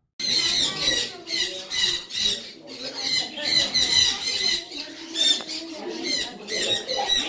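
Many caged pet birds chirping and squawking at once, a dense, unbroken chorus of high chirps.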